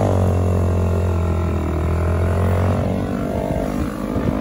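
Yamaha dirt bike engine running at a steady droning pitch while riding, easing slightly lower in the first half second and turning rougher and less even near the end.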